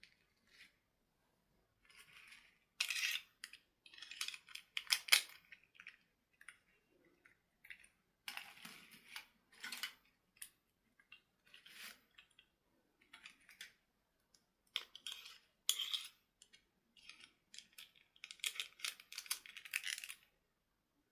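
Plastic toy packaging being handled: irregular crinkling rustles and small clicks in short bursts with pauses between, the longest stretches about 3, 8 and 19 seconds in.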